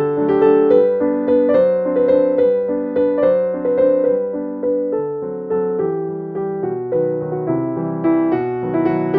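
Background piano music: a steady flow of notes, each struck and fading.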